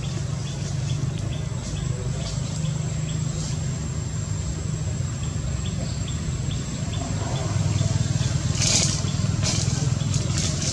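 Steady low engine-like rumble of distant motor traffic, swelling about two-thirds of the way through, under a thin steady high whine. A few short hissy bursts come near the end.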